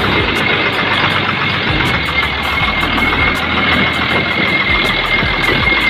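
DL1416 bus engine idling steadily with its valve cover off, freshly tuned up with its valve clearances adjusted. A thin, steady high whine sits over the running noise.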